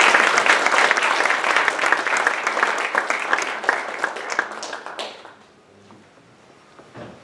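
Audience applauding, the dense clapping thinning to a few scattered claps and stopping about five seconds in.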